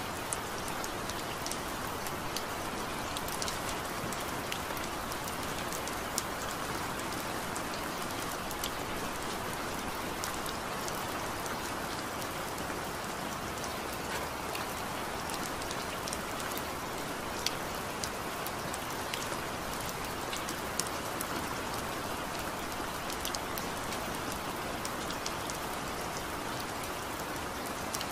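Steady rain falling: an even hiss with many scattered sharp drop hits.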